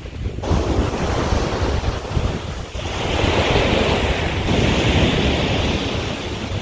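Wind buffeting the microphone over the rush of ocean surf on a beach. The rushing hiss comes up about half a second in and grows louder about three seconds in.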